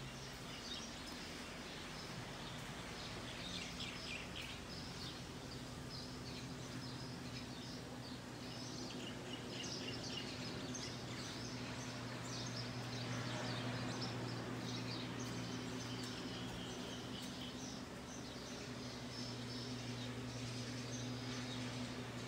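Birds chirping off and on over a steady low hum.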